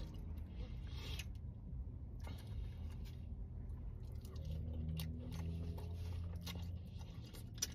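Close-up eating sounds: soft chewing and biting of a mouthful of chicken and rice in gravy, with a few light clicks and scrapes of a plastic fork in a foam takeout container, over a steady low hum.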